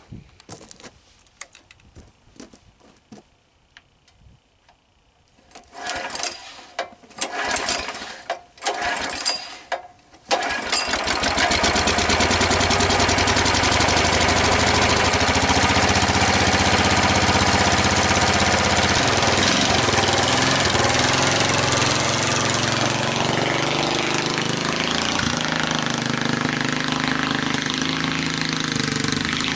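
A few seconds of quiet scuffs and knocks, then about ten seconds in the go-kart's 11 hp Honda single-cylinder engine starts up suddenly and keeps running steadily, its pitch shifting a little around two-thirds of the way through.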